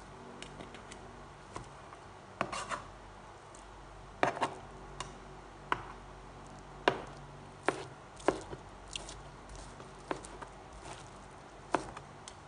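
Kitchen knife chopping boiled chicken breast while a fork holds the meat. It makes irregular sharp knocks, one or two a second, some much louder than others.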